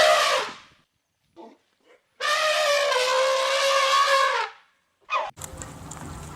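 Animal calls with a clear, steady pitch. One call trails off at the start, a long call lasting about two seconds begins about two seconds in, and a short call comes near the end. Then a low steady hum takes over.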